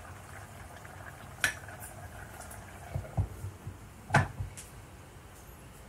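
A glass pot lid with a metal rim being lifted and set back on a cooking pot, with several sharp clinks and knocks, the loudest about four seconds in. A low steady hum runs underneath.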